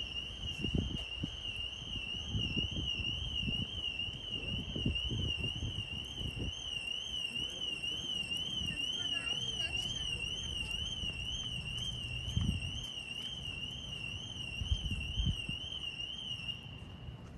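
An electronic alarm sounding a high warbling tone that sweeps up and down a few times a second, cutting off near the end.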